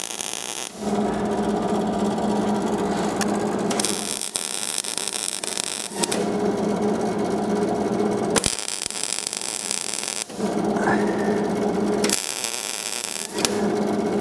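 MIG welding a patch onto thin, rusted lawnmower deck steel: the arc buzzes and crackles in four runs of two to three seconds each, starting and stopping sharply, with a high hiss between them.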